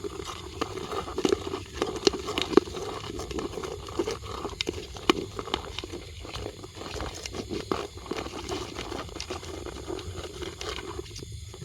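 Irregular rustling and crackling of dry leaf litter being disturbed, with many scattered sharp clicks.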